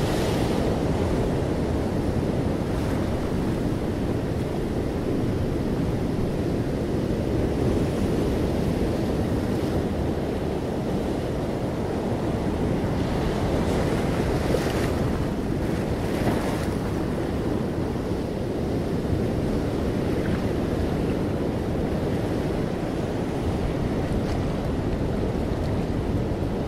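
Steady rushing noise, even in level throughout, with a few faint clicks around the middle.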